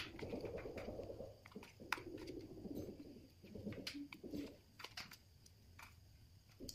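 A dove cooing in low repeated phrases, with sharp light clicks of metal tongs against a plastic tray and bowl.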